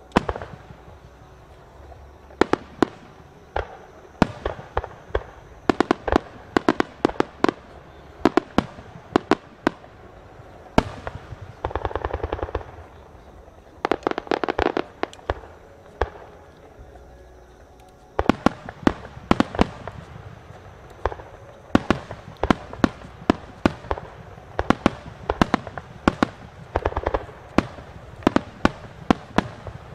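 Fireworks display: many sharp reports of aerial shells bursting in irregular clusters, with two stretches of dense crackling near the middle.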